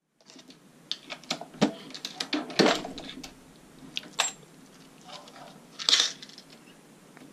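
Brass .45 pistol cartridge cases clinking and clicking as they are handled and primed at a single-stage reloading press. There are several sharp metallic clicks with soft handling noise between them, the loudest about two and a half seconds in and again near six seconds.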